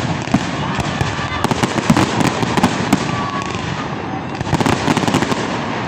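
Fireworks going off in quick succession: a dense, continuous crackle of pops and bangs.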